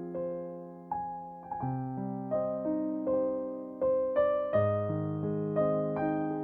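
Background music: a soft, slow piano melody with notes struck and left to ring.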